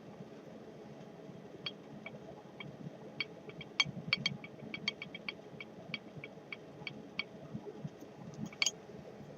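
80cc GY6 moped engine with a big-bore kit running steadily, with irregular sharp ticks and knocks over a low hum. This valve-like slapping is what the owner traced to a rocker arm randomly sticking, rather than piston slap.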